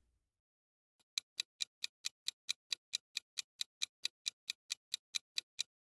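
Clock-ticking sound effect, quick even ticks about four to five a second, starting about a second in: a quiz countdown timer running while the viewer guesses.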